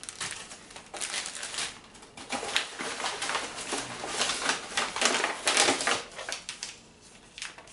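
Plastic produce bags and a paper bag crinkling and rustling in irregular bursts as packets are handled and pulled out of the bag, quieter for the last second or so.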